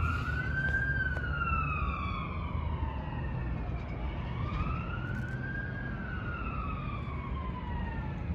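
Fire engine siren wailing, its pitch rising and falling slowly, about one cycle every five seconds, over a low rumble.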